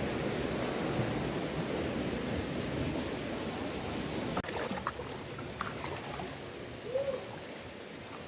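Running water of a spring-fed stream, a steady rush that turns suddenly quieter about four and a half seconds in, with a few faint short calls or voice sounds in the second half.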